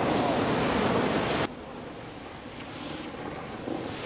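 A loud, steady rush of wind noise cuts off abruptly about a second and a half in. Quieter ocean surf washes against a rocky lava shore after it, slowly building toward the end.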